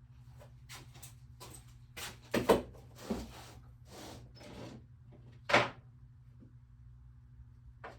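Tools and hardware being handled and set down in a small workshop: a series of clicks, clunks and rustling, the two loudest knocks about two and a half and five and a half seconds in, over a steady low hum.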